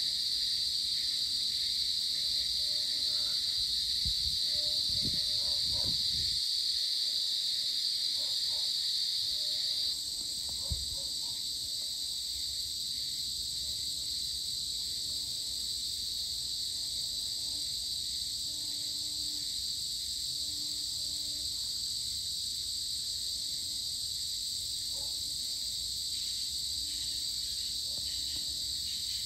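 Evening insect chorus of crickets and similar insects: a steady, dense, high-pitched shrilling that shifts and gets a little quieter about a third of the way in. Faint short low notes repeat every second or two in the second half.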